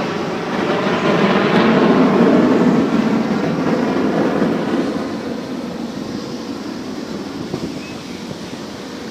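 Military aircraft flying past: a loud rushing engine noise that peaks about two seconds in and then slowly fades as it moves away.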